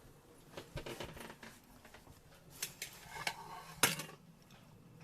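A handful of light clicks and knocks from cabin fittings being handled, the sharpest about four seconds in.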